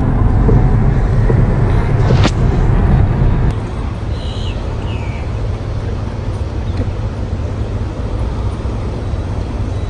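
Steady low rumble of road noise inside a moving car's cabin, cutting off about three and a half seconds in to a quieter, even hum of outdoor traffic and idling vehicles.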